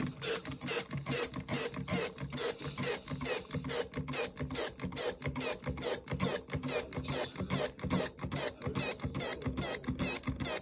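Fabric deodoriser being squirted from a blue plastic squeeze bottle into a small plastic spray bottle, each squeeze giving a short wet, crackly squirt in a quick, even rhythm, refilling the spray bottle.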